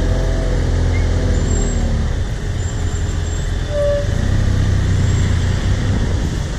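BMW F800GS parallel-twin engine running as the motorcycle rides slowly through city traffic, its pitch rising and falling a few times with the throttle, over the steady sound of surrounding cars, buses and motorbikes.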